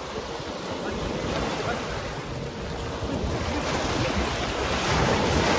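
Small sea waves breaking and washing over a pebble beach, a steady rush of surf that swells louder in the second half.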